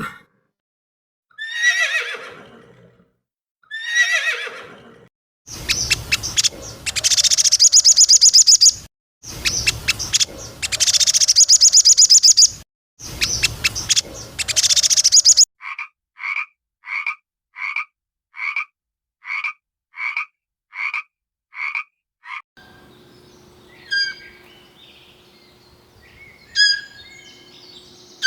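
A sequence of different animal calls. Two short falling calls come first, then about ten seconds of loud, rapidly pulsed croaking calls. A run of short, evenly spaced calls about twice a second follows, then scattered chirps over a faint hum near the end.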